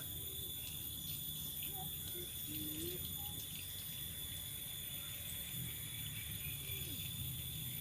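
Steady high-pitched drone of insects, cricket-like, over a low steady background rumble, with a few faint, brief vocal sounds.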